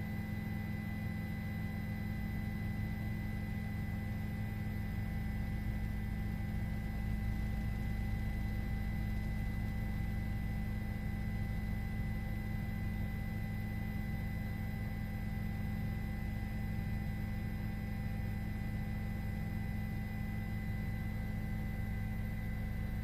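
Steady low hum with several faint, unchanging high tones above it.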